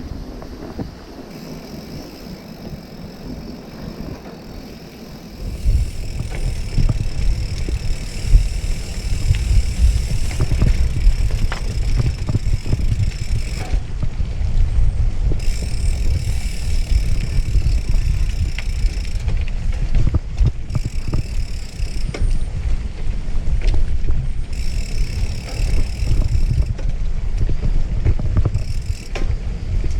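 Wind buffeting the microphone of a moving bicycle ride, a low rumble that gets much louder about five seconds in, with scattered clicks and rattles from the bike.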